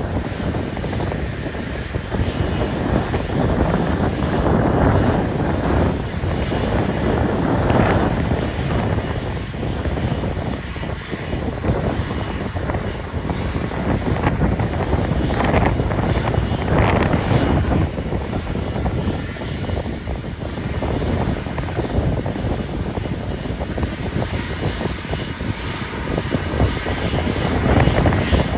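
Airliner jet engines running steadily, mixed with gusty wind buffeting the microphone.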